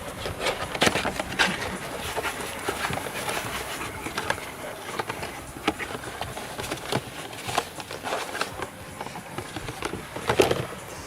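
Irregular clicks and knocks of hands handling the parts of a diesel fuel filter housing, with the loudest knock near the end.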